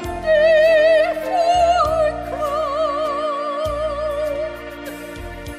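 A female classical singer sings a traditional hymn in operatic style with a wide vibrato over instrumental accompaniment. She holds long notes, and her voice fades out in the second half while the accompaniment carries on.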